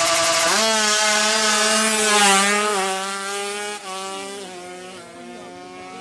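Tuned two-stroke drag bike engine at full throttle, running at high revs. Its pitch drops sharply about half a second in and steps down again a few times as it shifts up, then it fades as the bike pulls away.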